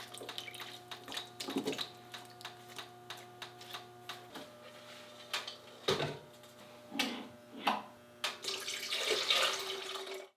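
Water being run and splashed, with frequent light clinks and knocks of containers being handled, over a steady electrical hum that partly drops out about four seconds in. The water grows fuller near the end, then cuts off abruptly.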